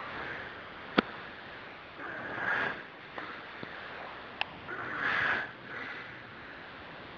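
A sleeping man snoring, two noisy snores about two and a half seconds apart, with a sharp click about a second in.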